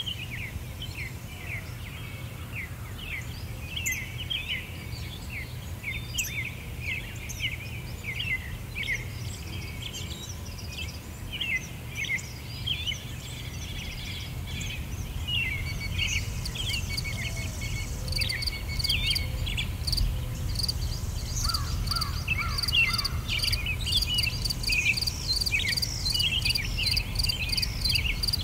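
Nature ambience of small birds chirping in quick, falling notes over a steady low rumble. About halfway through, a fast, evenly pulsing insect trill joins in and grows louder.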